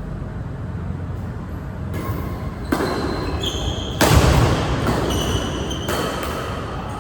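Badminton play on an indoor court: sharp racket-on-shuttlecock hits, with the loudest and longest burst about four seconds in. Short high squeaks of court shoes on the floor come between the hits.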